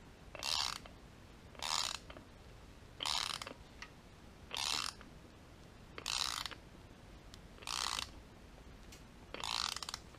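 Ratchet wrench clicking in seven short bursts about a second and a half apart, as it turns the installation tool's threaded rod to press an ATI Super Damper harmonic balancer onto an LS1 crankshaft.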